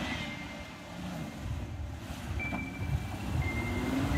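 Mitsubishi Pajero SUV's engine running as it drives through soft desert sand, a low rumble that grows louder near the end.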